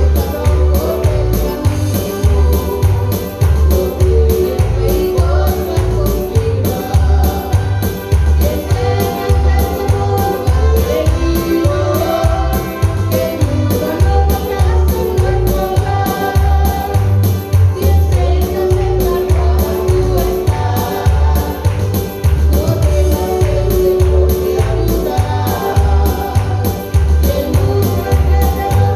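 Christian praise song sung by a man-and-woman duo over a steady bass beat, the voices holding long melodic lines.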